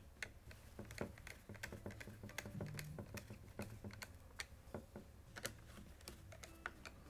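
Small screwdriver driving the receiver-cover screws into a Remington Nylon 66 rifle. A quiet, irregular run of small clicks and ticks, several a second.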